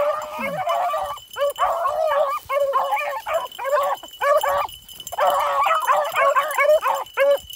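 Beagles baying on a rabbit's trail: the pack in full cry with overlapping yelping bays, broken by a few short pauses.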